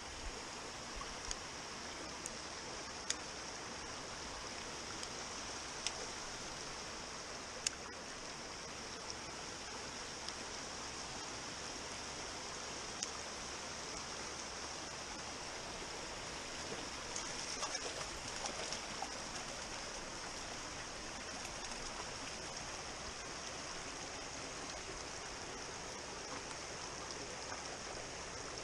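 Small rocky stream babbling steadily over stones, with a few sharp clicks now and then in the first half.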